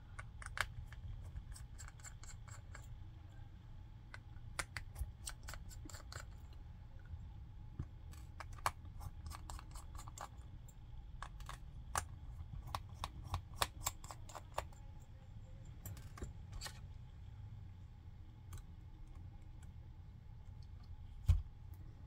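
Light clicks and ticks of small tools on a Samsung Galaxy phone's internal screws and metal plate during disassembly, coming in scattered clusters over a low steady hum, with a soft knock near the end.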